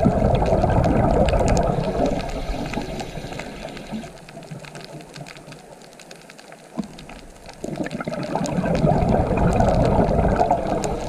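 Scuba diver's exhaled air bubbling out of the regulator underwater: two long breaths of rushing, crackling bubble noise with a quieter pause of about four seconds between them.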